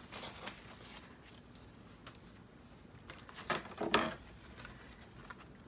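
Paper envelopes and junk-mail mailers being handled and shuffled by hand: faint rustling, with a louder rustle of paper about three and a half seconds in.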